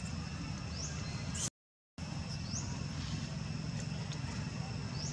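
Steady outdoor background: a low rumble with thin, steady high tones and a few short rising chirps. It drops out to total silence for about half a second around one and a half seconds in.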